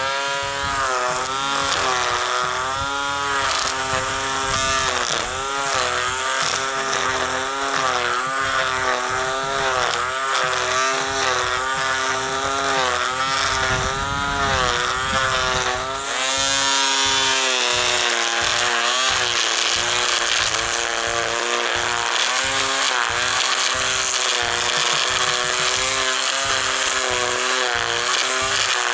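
Ryobi electric string trimmer in edging mode, running and cutting the grass edge along concrete; its motor whine keeps rising and dipping in pitch as the line meets the turf.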